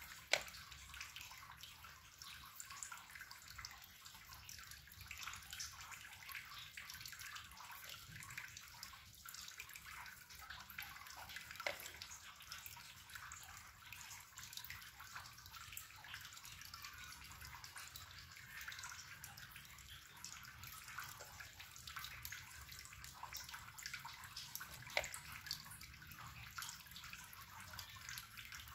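Faint steady hiss with a fine crackle, with a few light taps as small squares of cookie dough are set down on a metal baking tray.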